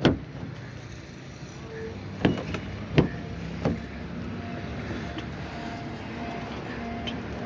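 Honda Civic door handle pulled and the door latch clicking open: a sharp click at the start, then three more clicks a couple of seconds later as the front door is opened. From about halfway on, a quiet tone repeats about twice a second.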